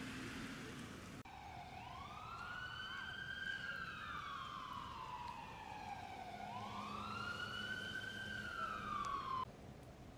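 Emergency vehicle siren on a wail: the pitch sweeps up quickly and slides slowly back down, twice, then cuts off abruptly near the end. A steady hiss comes before it, in the first second.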